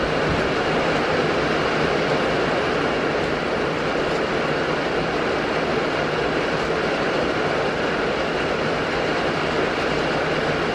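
Steady rain, heard from inside a wooden goat shed: an even, unbroken hiss that neither rises nor falls.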